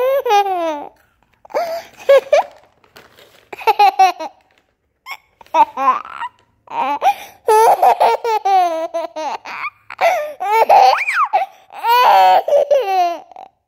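Young child laughing in repeated high-pitched bursts, with short pauses between them.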